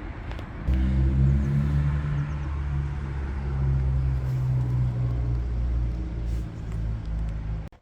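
Citroën Jumper van's diesel engine running at a steady idle, a little louder from about a second in, then cutting off suddenly at the very end.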